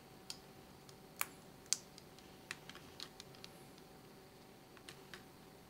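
Light, irregular clicks and ticks of a rimless compression-mount eyeglass frame's thin metal temple arms and small mount parts being handled and fitted by hand, with two sharper clicks in the first two seconds, over a faint steady hum.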